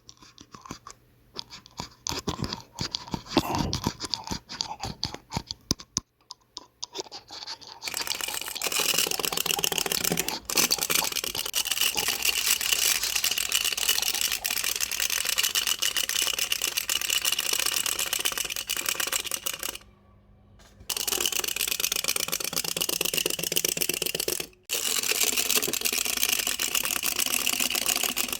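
Teeth grinding (bruxism): a few scattered scrapes and clicks, then from about eight seconds in a dense, continuous rapid grating, broken twice by brief pauses in its later part.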